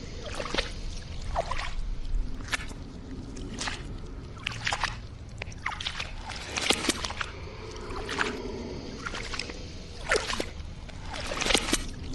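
Gelatinous cube monster sound effect: irregular wet squishing and sloshing smacks over a steady low rumble.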